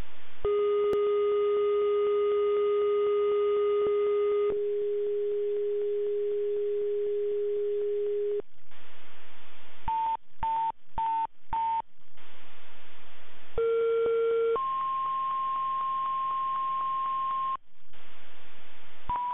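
Fire dispatch alert tones over the radio. First a long steady low tone of about eight seconds, then a quick run of short higher beeps. Then comes a two-tone page, a one-second lower tone going straight into a three-second higher tone, and another tone starts near the end.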